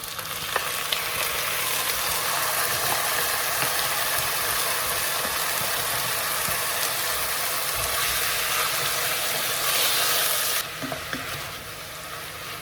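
Chicken pieces sizzling in hot oil with fried onions and whole spices in a cooking pot, with a few light knocks of stirring. The sizzle swells about half a second in, holds steady, then drops abruptly near the end.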